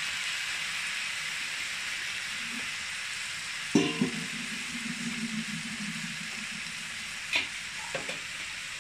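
Basmati rice and green peas sizzling as they fry in a kadhai, a steady hiss. A utensil knocks against the pan about four seconds in, with a couple of lighter clicks near the end.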